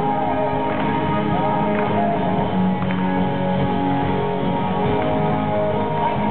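Live band playing, with guitars prominent over a steady, dense wash of held notes.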